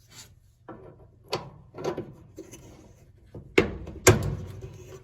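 Knocks and scraping from dryer parts being handled around the failed belt switch pulley, a run of irregular clunks with the two loudest close together about three and a half and four seconds in.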